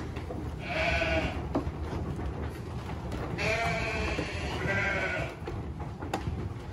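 Icelandic sheep bleating three times: a short bleat about a second in, then a longer bleat followed closely by a shorter one. Under the calls is a steady low rustle of sheep pulling and chewing hay at the feeder.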